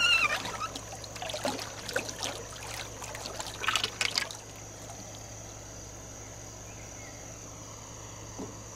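Old 12-volt ElectroPal electric trolling motor running on its first forward speed, submerged in a barrel of water, its propeller churning the water. Splashing and sloshing are heaviest for about the first four seconds, then settle into a steady swirling rush.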